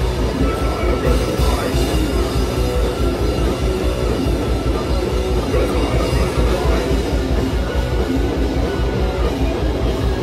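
Live heavy rock band playing at full volume: distorted electric guitar and bass over rapid, steady kick-drum beats, with vocals into a microphone, heard as a loud, dense wall of sound.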